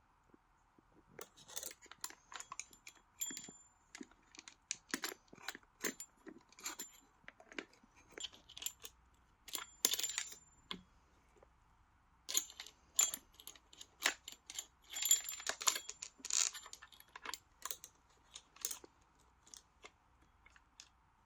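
Saw chain links and small metal chainsaw parts clinking and rattling as they are handled, in irregular sharp metallic clicks and jingles with short pauses.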